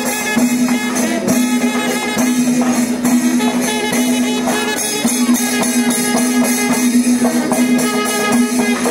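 Kerala temple festival ensemble playing: fast, dense drumming and clashing hand cymbals over a steady held note.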